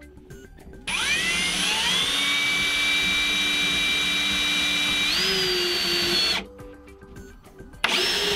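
Ryobi R18PDBL 18V ONE+ brushless drill running while drilling into a particleboard panel. About a second in, the motor spins up with a rising whine and then runs at a steady high whine. Around five seconds in the pitch steps higher, and the drill stops; a brief second burst follows near the end.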